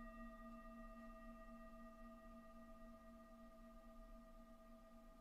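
Faint, sustained ringing tone with several overtones that slowly fades.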